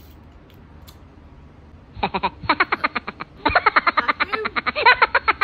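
A wailing, sob-like cry in rapid pulses, starting suddenly about two seconds in, with a short break partway through. It is a mock-crying reaction to the mango's sourness.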